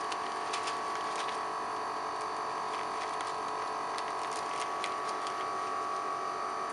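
Steady machine hum with several close tones, with a few faint clicks from gloved hands handling plastic cable ties.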